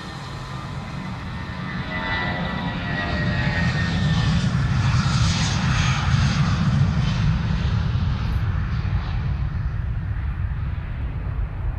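Jet airliner's engines at takeoff thrust as it accelerates down the runway and lifts off, a deep rumble with a rushing roar and a thin whine that drifts slightly lower in pitch. The sound grows louder for the first half as the aircraft comes closer, then holds.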